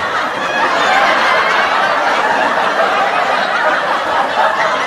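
Laugh track of a crowd laughing steadily.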